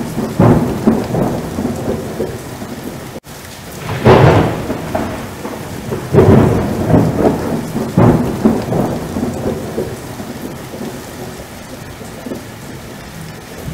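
Thunderstorm sound effect: several rolling claps of thunder over a steady hiss of heavy rain, the loudest rumbles about four and six seconds in, with a split-second break about three seconds in where the track is cut.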